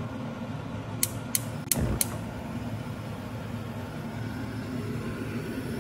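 A metal pressure cooker pot being handled: four sharp clinks within about a second, about a second in, over a steady low hum.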